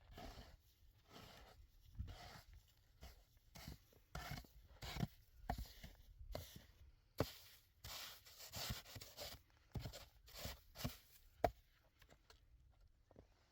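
Irregular short knocks and scraping, rubbing sounds of hands working with objects, a dozen or so uneven strokes with the loudest knocks about seven and eleven seconds in.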